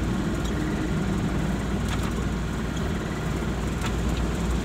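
Delivery truck's engine running, heard from inside the cab as a steady low drone, with a few faint ticks.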